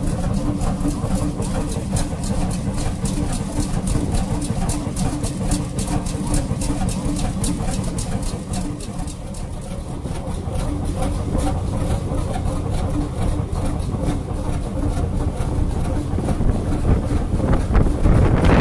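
Vintage stationary engine running steadily with a fast, even beat. Near the end a louder low rumble rises over it.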